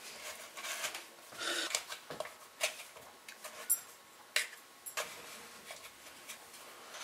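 Faint handling sounds of fingers pressing biscuit dough into a metal muffin tin: soft rubbing and rustling with scattered light taps and clicks.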